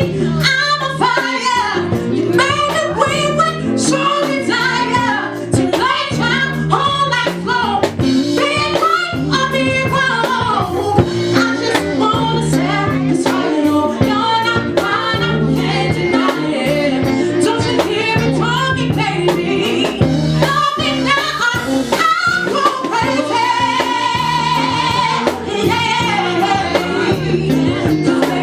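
Live band playing a song with a singer: drum kit, bass guitar and keyboards under a lead vocal that carries the melody throughout.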